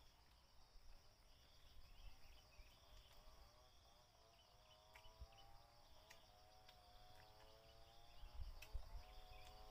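Faint, steady insect chirring in the background, with a few light clicks and low wind rumble on the microphone that grows near the end.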